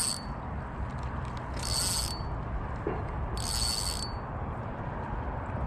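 Spinning reel's drag clicking in three short rapid ratcheting bursts, about two seconds apart, as line is pulled off the spool by hand.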